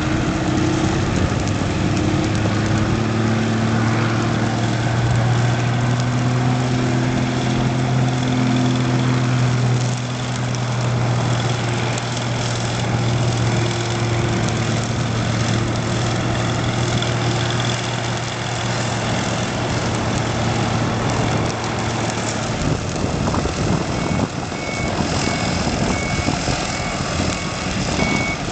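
A vehicle engine idles steadily over a rushing noise, then cuts off about 22 seconds in. Near the end a reversing alarm starts beeping, a short high beep repeated evenly.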